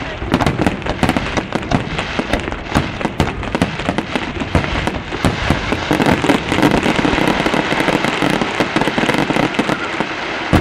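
Aerial fireworks bursting in a rapid, continuous barrage: many bangs a second over steady crackling, with no gap between reports.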